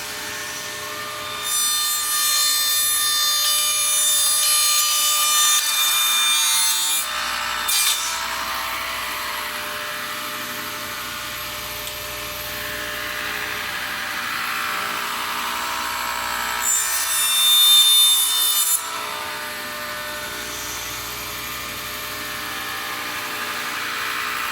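Grizzly table saw running with a steady motor hum while ripping thin wooden strips: two louder cuts, one a couple of seconds in lasting about five seconds and a shorter one about two-thirds of the way through. The saw is switched off at the end.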